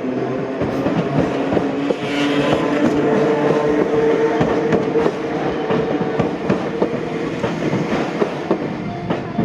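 Enoden electric train running over a level crossing, its wheels clicking over the rails on top of a steady hum of tones.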